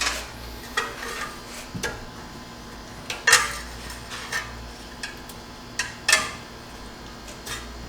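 Metal hand tools clinking against metal: about nine sharp, irregularly spaced clinks, the loudest about three and six seconds in.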